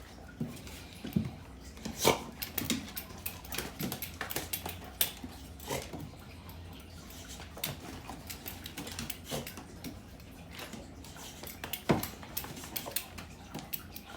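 Small Yorkie-Chihuahua mix dogs playing: scattered short dog sounds and many quick scuffling clicks, with the loudest bursts about two seconds in and near the end.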